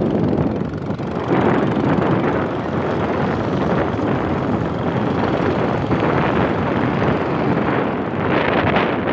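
Wind buffeting the phone's microphone over the steady running noise of the vehicle it rides in. A motorbike passes close alongside near the end.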